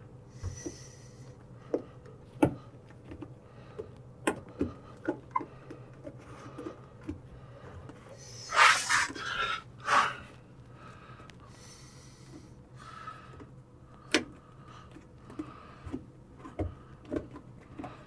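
Rubber door bellow seal of a Whirlpool front-load washer being pressed and worked by hand onto the lip of the washer's sheet-metal front panel: scattered small clicks and taps, with a louder rubbing, scraping rustle about nine seconds in. A faint steady hum runs underneath.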